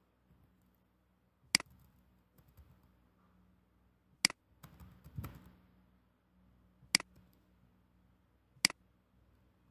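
Four sharp single clicks, a few seconds apart, from a computer mouse and keyboard as code is edited, with a softer knock between them. A faint steady low hum runs underneath.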